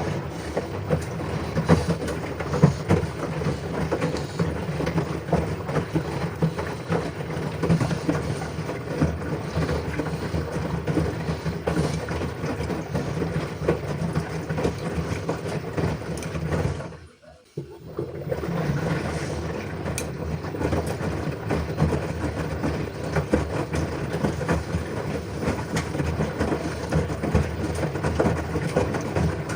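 LG front-loading washing machine running a wash cycle: a steady churning noise with many small knocks and clicks as the drum tumbles the load. It breaks off for about a second a little past halfway, then starts again.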